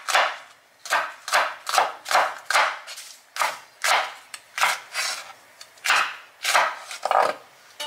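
Chef's knife slicing green peppers into rings on a wooden cutting board: a run of cuts about two a second, each stroke ending in a knock of the blade on the board, with a couple of brief pauses.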